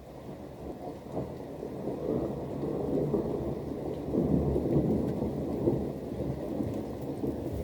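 A long roll of thunder in a rainstorm: a deep rumble that builds over the first few seconds, is loudest near the middle, and eases off a little, with rain falling underneath.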